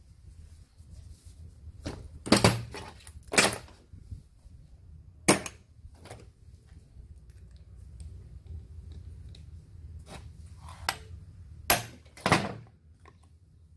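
About seven separate clanks and knocks of metal tools and a rusty submersible pump's housing being handled on a steel workbench. The sounds come singly, with quiet gaps between them, and no power tool runs.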